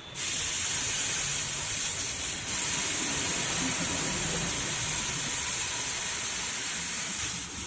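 Air hissing steadily out of a car tyre through a dial pressure gauge's hose fitted to the valve, as the tyre is let right down. The hiss starts abruptly and dips briefly near the end.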